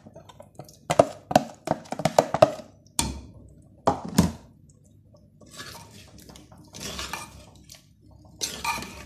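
A spoon tapping and scraping on a plastic container as cooked chicken pieces are tipped into a clay handi of tomato-cream sauce, with two heavier thunks a few seconds in. Then a ladle stirring and scraping in the clay pot, loudest near the end.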